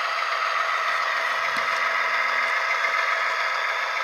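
Tsunami sound decoder in a model GE GEVO diesel locomotive playing a steady diesel engine sound through its small onboard speaker while the model runs, with a few faint clicks.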